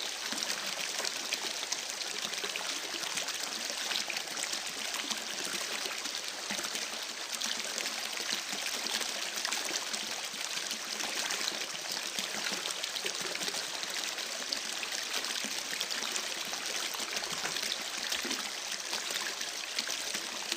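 Small stream babbling steadily, water trickling and splashing over stones in a constant bright, fizzy wash.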